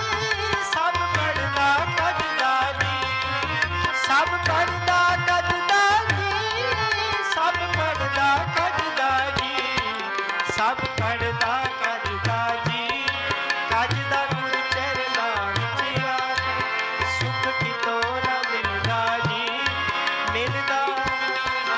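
Harmonium and tabla playing devotional kirtan music: a sustained reedy harmonium melody over a steady tabla rhythm with regular bass-drum strokes.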